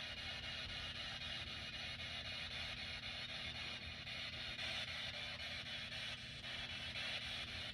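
Ghost-hunting spirit box sweeping through radio stations, giving a steady hiss of radio static under a low hum.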